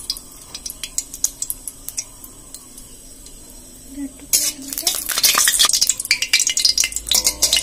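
Whole spices (bay leaves, cloves, cinnamon) sizzling and crackling softly in hot oil and ghee in a metal kadai. About four seconds in, a steel spatula starts clattering and scraping against the pan in a fast run of sharp strikes as the spices are stirred.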